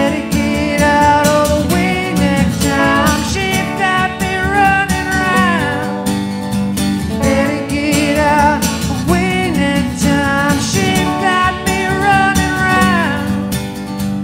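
Live acoustic rock song: a male voice singing over a strummed acoustic guitar and a clean electric guitar played through a small amplifier.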